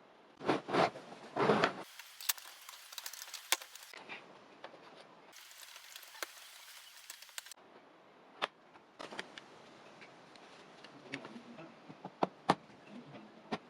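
Plastic clicking and clacking of a Lego typewriter being worked: scattered sharp clicks, with a few louder knocks in the first two seconds.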